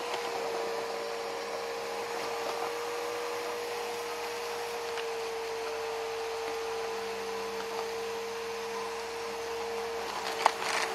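Bissell bagless upright vacuum cleaner's motor running steadily with a constant whine and a rush of airflow, with a sharp click near the end.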